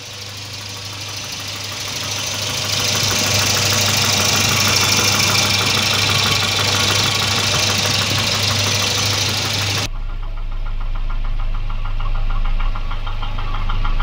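Volvo B230 2.3-litre four-cylinder engine running with a light, even knock of piston slap, reduced now that the engine runs at proper temperature on a 92-degree thermostat. About ten seconds in the sound changes abruptly, duller and with a low hum underneath.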